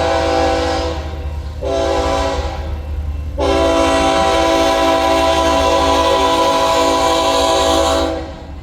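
Diesel locomotive's multi-chime air horn sounding: a blast that ends about a second in, a short blast, then a long blast that cuts off near the end. This is the close of the grade-crossing signal. The locomotive's engine rumbles low underneath.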